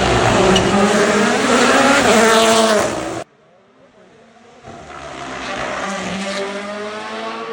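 Rally cars at full throttle on a tarmac special stage: one car's engine runs loud with its pitch rising as it accelerates, then cuts off suddenly about three seconds in. Near the middle another rally car is heard coming closer, its engine climbing in pitch and getting louder.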